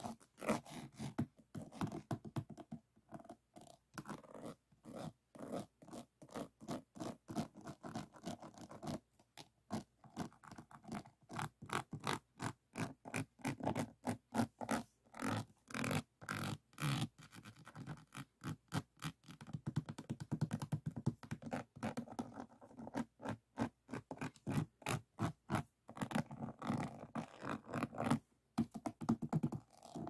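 Fingertips and nails scratching, rubbing and tapping across a finished diamond painting: a fast run of small crisp clicks and scrapes over rows of round plastic drill beads, in quick strokes with short pauses.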